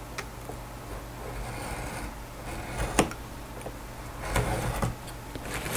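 Hobby knife scoring through a sheet of glue-hardened napkin laminate along a ruler: light, repeated scratchy strokes, with a sharp tick about three seconds in, over a steady low hum.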